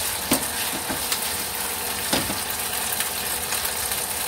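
Minced pork with onion and garlic sizzling steadily in a wok as it is stir-fried. A spatula knocks against the pan a few times.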